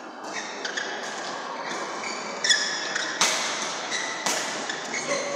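Badminton racquets hitting the shuttlecock in a fast doubles rally: several sharp smacks, the loudest about two and a half, three and four seconds in, with short shoe squeaks on the court between them.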